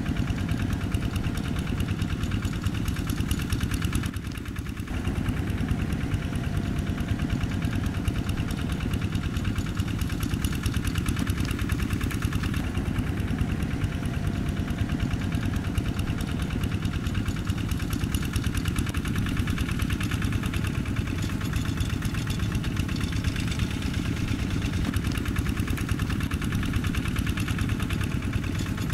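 Single-cylinder diesel engine of a Quick G1000 walking tractor running steadily as the tractor works the field. The sound dips briefly about four seconds in.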